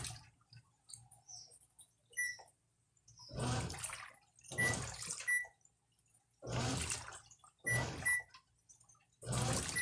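Brastemp electronic top-loading washing machine agitating, water swishing in the tub in separate strokes about every second or so from about three seconds in. Short high beeps and a low motor hum run underneath.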